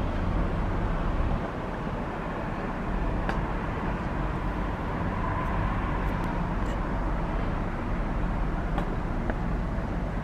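Steady low rumble of a seagoing tug's engines as it passes along the river, under a constant outdoor noise haze.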